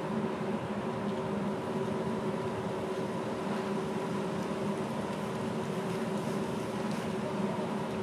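Steady mechanical hum with several held tones over a low rushing noise, unchanging throughout.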